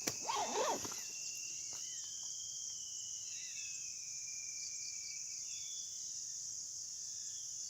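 Steady high-pitched drone of a forest insect chorus, with a long thin whistling note that wavers in pitch for several seconds and short bird chirps in the second half. A brief low sound comes just after the start.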